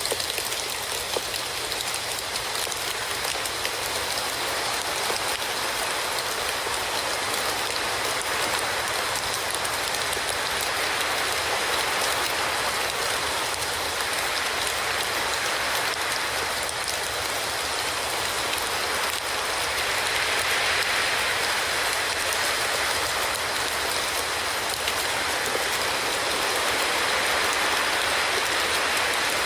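Steady rain falling: an even hiss of drops on surfaces, growing slightly louder about two-thirds of the way through.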